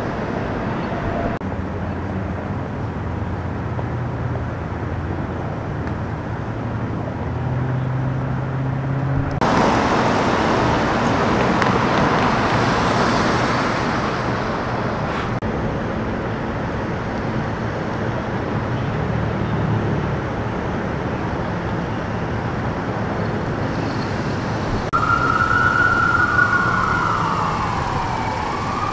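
Heavy vehicle engines idling, then a stretch of louder road noise about ten seconds in. About four seconds before the end, an emergency vehicle's siren starts wailing, its pitch sweeping up and down.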